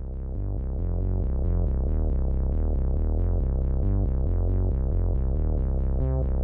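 Electronic background music: a synthesizer playing a fast run of repeated notes, about five a second, over a steady bass line, starting suddenly.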